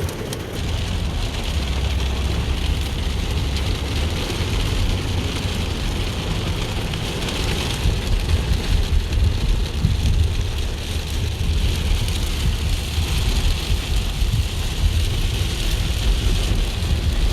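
Heavy rain mixed with hail pelting a car's roof and windshield, heard from inside the moving car over a low rumble of road and engine. The downpour grows more uneven and spattery about halfway through.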